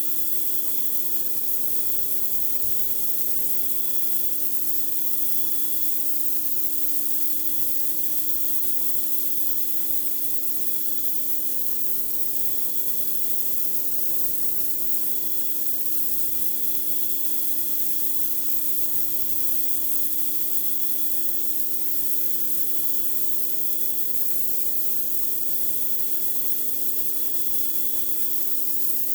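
Pressure washer blasting high-pressure water onto a concrete driveway: a steady, even hiss of spray over the machine's constant hum.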